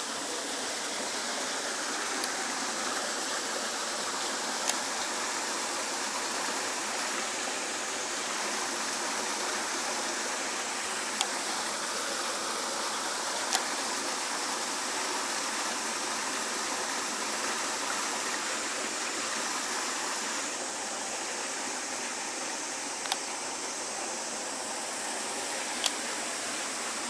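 Water rushing steadily into a rocky pool from a small cascade, an even wash of sound, with a handful of sharp clicks scattered through it.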